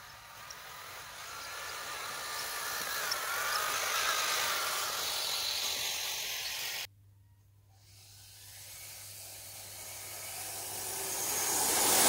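Radio-controlled model snow groomer driving through snow: a hiss from its drive, tracks and blade, with a faint wavering motor whine, growing louder as it approaches. It cuts off abruptly about seven seconds in, then a second pass builds steadily louder as the groomer comes right up to the microphone near the end.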